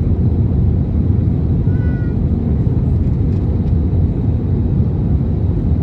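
Steady low rumble of an Airbus A320neo's cabin on approach to landing, engine and airflow noise heard from a window seat over the wing. A brief faint high squeak comes about two seconds in.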